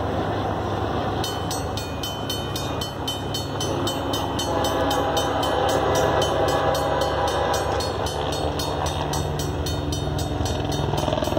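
Approaching train led by Union Pacific 4141, an EMD SD70ACe diesel locomotive: a steady low engine hum, with a horn chord sounding from about four seconds in.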